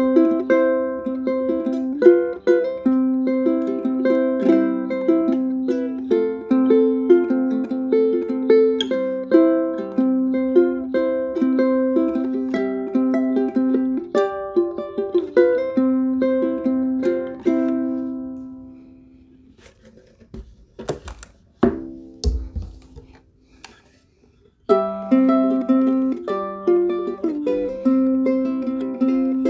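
Pineapple ukulele with a spruce top and maple body, strung low-G with fluorocarbon strings, played as a plucked melody. The last notes ring out and fade about two-thirds of the way through, a few knocks and clicks follow, and the playing starts again near the end.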